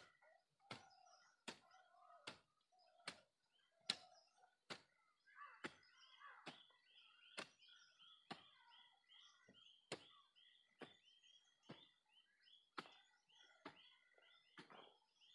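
Hand hoe chopping into loose tilled soil in steady, evenly spaced strokes, a little more than one a second. Small birds call throughout in the background.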